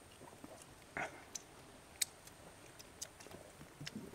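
Faint, scattered clicks and light taps of people eating, a few a second, with a sharp tick about two seconds in as the loudest.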